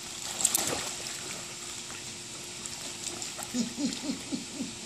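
Swimming-pool water splashing about half a second in, as a swimmer and an inflatable raft move through it. Near the end comes a quick run of short voice sounds.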